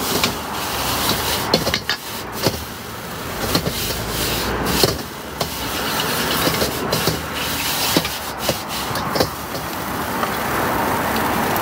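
Steady background din with frequent short clicks and knocks scattered through it.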